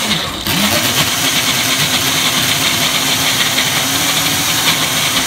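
Personal blender motor running at full speed, its cup held pressed down on the base, blending fruit and ice cream into a thick smoothie. It cuts out briefly about half a second in and spins back up with a rising whine.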